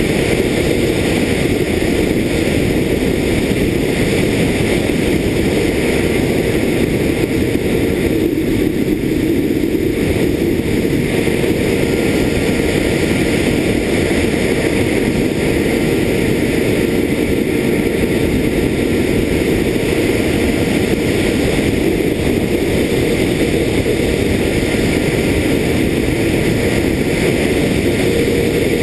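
Multiplex EasyStar RC plane in flight, heard from its onboard camera: the electric motor and pusher propeller running at steady throttle as a constant drone, with wind rushing over the microphone.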